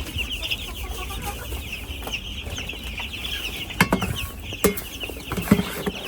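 A flock of broiler chicks peeping continuously, many high overlapping cheeps at once. A few sharp knocks sound in the second half.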